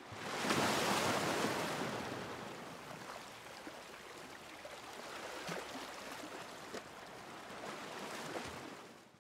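Rushing water sound effect that swells up in the first second, runs on steadily with a few faint clicks, and fades out near the end.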